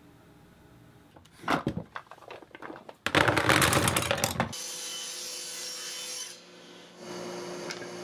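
Wooden screwdriver rack and loose screwdrivers handled on a workbench: a few knocks and clatters, then a loud scraping, rattling rub of wood and metal for about a second and a half. A steady hiss and a low hum follow.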